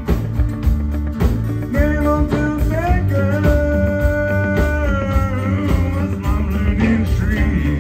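A live country band playing: a lead singer over acoustic guitar, electric guitar, fiddle and drums, with a long held melody note in the middle.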